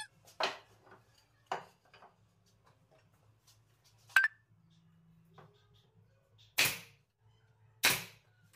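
Pneumatic brad nailer firing into pine frame pieces: about five sharp shots spread out, the sharpest about four seconds in and two heavier ones about a second apart near the end.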